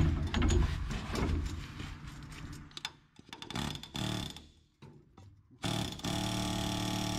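Pneumatic air chisel with a short bit hammering on a seized leaf-spring shackle bolt: rough, uneven hammering for the first few seconds, then a steady buzzing run from about five and a half seconds in. The bolt does not budge.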